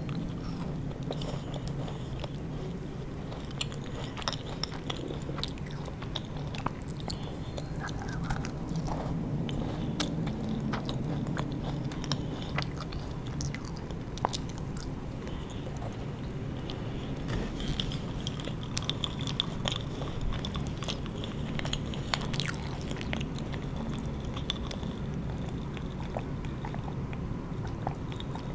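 Close-miked eating sounds: a macaron being bitten and chewed, with soft crunches and many small wet mouth clicks.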